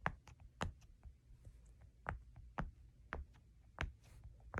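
Silicone push-pop poppet bubbles being pressed one by one, about seven soft pops at an uneven pace. The poppet is being popped on the side she is pretty sure is its bad, less satisfying side.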